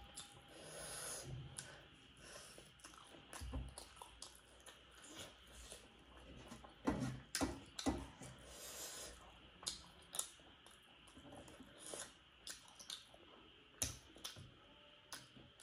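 Close-miked chewing and eating sounds: irregular small clicks, smacks and crunches of someone eating, with a few louder ones in the middle.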